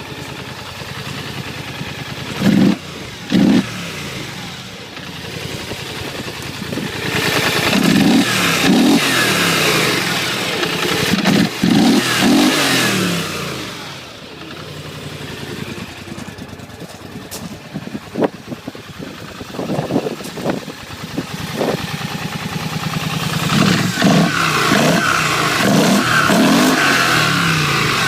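An engine running and revving, its pitch rising and falling again and again, with two short loud bursts a few seconds in.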